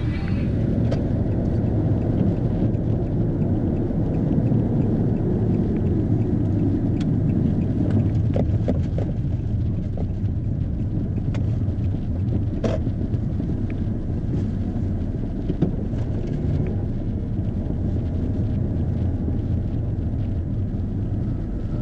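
A car driving, heard from inside the cabin: a steady low rumble of engine and road noise, with a few sharp ticks now and then.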